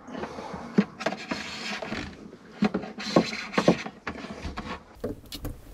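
Starlink cable being fed through a grommeted hole in a cabinet and handled: rubbing and scraping, with several light knocks against the cabinet.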